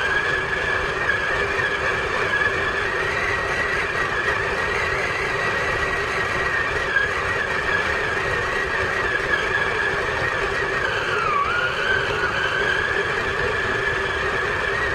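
Steady high-pitched whine of a small electric motor, dipping briefly in pitch about eleven seconds in.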